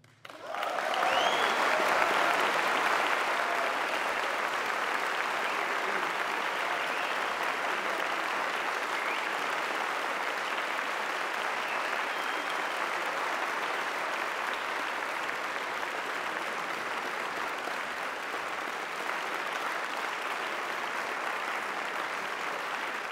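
Audience applauding, starting suddenly and building for about two seconds, then holding steady.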